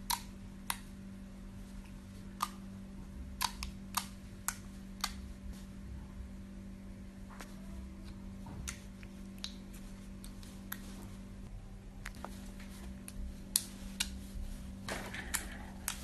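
Fingers poking and pressing a lump of slime, giving sharp, irregularly spaced clicks and pops as trapped air bursts out, with a short run of wetter squishing near the end.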